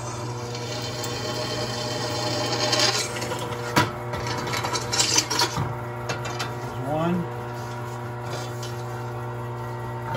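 Craftsman benchtop drill press motor running steadily while its bit drills a 1/4-inch hole through steel plate. The cut makes a grinding scrape with sharp ticks, loudest from about two to six seconds in, and a short rising squeal comes about seven seconds in.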